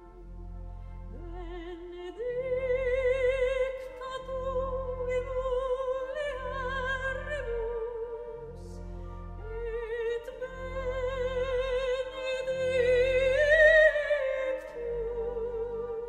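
Background music: a solo operatic voice holding long high notes with wide vibrato over orchestral accompaniment, swelling to its loudest near the end.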